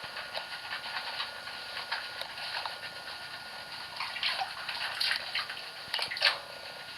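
Bathwater splashing and sloshing as hands scrub a hen's wet feathers. The splashes come unevenly and grow louder about four seconds in.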